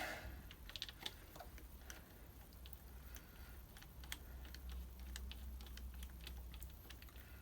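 Faint, irregular small clicks and taps of hand tools and bolts being worked on a motorcycle's clutch case cover, over a low steady hum.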